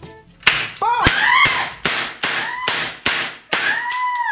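A toy cap gun going off with a sharp crack about half a second in, followed by a run of short, sharp, high-pitched calls, about two a second, each rising and falling in pitch.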